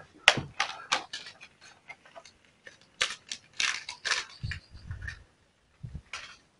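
A dog's claws clicking and tapping irregularly on wooden deck tiles as it moves around and noses a fleece snuffle mat, with a few low thuds in the second half.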